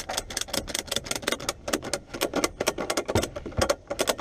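Ratchet strap's ratchet handle being worked back and forth, its pawl clicking over the gear teeth in fast runs of sharp clicks, several a second, as the strap is tightened down to secure a load.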